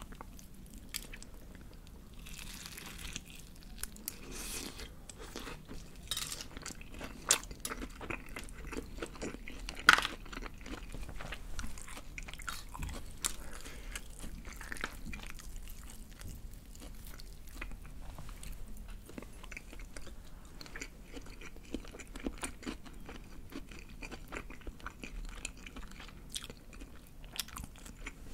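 Close-up crunching, biting and chewing of crispy BBQ Golden Olive fried chicken breast, the fried coating crackling as the piece is torn apart by hand and eaten. Two sharper cracks stand out, about seven and ten seconds in.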